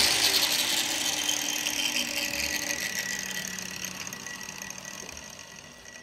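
Angle grinder with a hoof-trimming disc running free, off the hoof, its sound fading steadily away.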